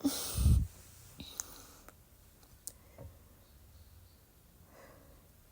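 A short, loud, low croak from the throat at the start, the kind of sound made by trapped air in someone with R-CPD (retrograde cricopharyngeal dysfunction, inability to burp). It is followed by faint breathing and a smaller low throat sound about three seconds in.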